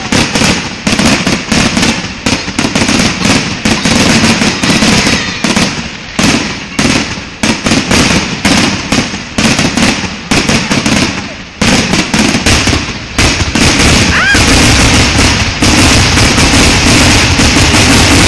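Aerial fireworks going off in a loud, rapid barrage of bangs and crackles, several a second. About two-thirds of the way in they merge into a continuous dense crackle, and a rising whistle from a shell is heard around then.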